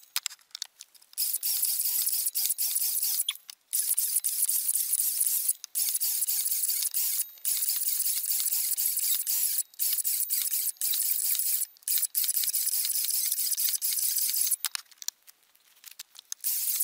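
Makita XSH06 36-volt cordless 7¼-inch circular saw cutting through boards one cut after another, a steady high-pitched sound with no low end, broken by short gaps every couple of seconds and a longer gap near the end.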